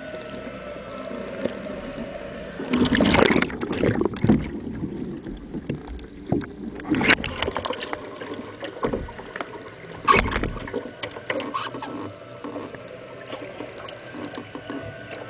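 Kayak paddle strokes and water splashing against the kayak's deck close to the microphone. Several louder splashes come about three, seven and ten seconds in as the kayak is leaned and braced.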